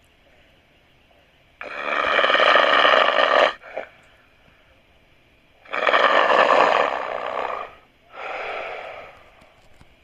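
A person snoring loudly: two long snores about four seconds apart, each followed by a shorter, softer one.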